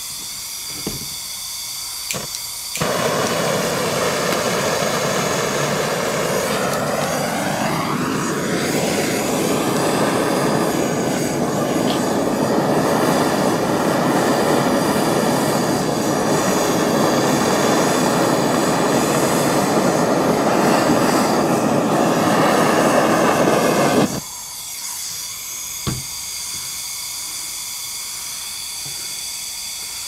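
Handheld propane torch running with a steady roar, heating a battery cable terminal lug for soldering. It comes up loud from a softer hiss about three seconds in and drops back to the softer hiss about six seconds before the end.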